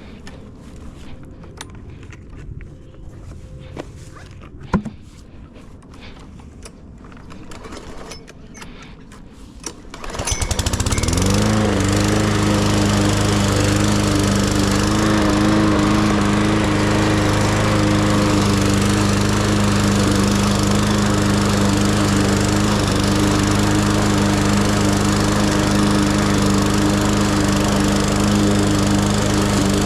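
Light clicks and handling noise, then about ten seconds in a lawn mower engine starts up. Its pitch rises quickly and settles into a steady, even run.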